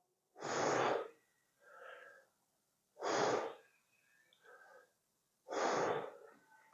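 A man's sharp, forceful breaths, three of them about two and a half seconds apart, each lasting about half a second, as he works through reps of Romanian deadlifts with a loaded barbell.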